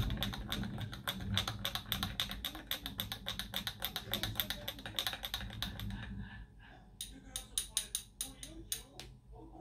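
Metal teaspoon clinking against a small glass espresso cup while stirring, several quick clinks a second. The stirring stops about six seconds in, followed by a few more separate clinks as the spoon is worked and lifted out.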